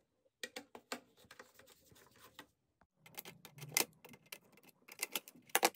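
Small metal clicks and taps of hex nuts and washers being handled and set down on a table, with pliers working at a connector screw, scattered and irregular, the sharpest clicks near the end.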